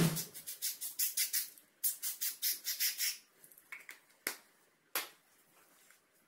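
Blue wound spray being sprayed from a small spray bottle onto a cat's fresh neuter incision. It goes in a quick run of short hissing puffs for about three seconds, then a few single puffs near the end.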